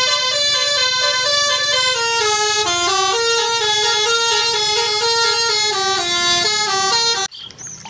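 Telolet bus horn playing a tune: a quick run of stepped horn notes rising and falling, lasting about seven seconds and cutting off suddenly near the end.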